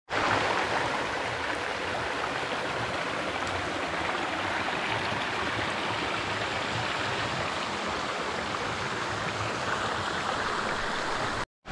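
Small rocky mountain stream flowing over mossy stones and a little cascade: a steady rush of water that cuts off abruptly near the end.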